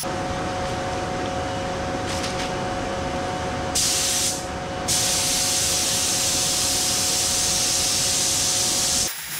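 Compressed-air paint spray gun hissing as top coat is sprayed onto a truck cab, in a short burst about four seconds in and then a long steady pass until near the end. Under it the inflatable spray booth's air pump runs with a steady hum, keeping the booth inflated.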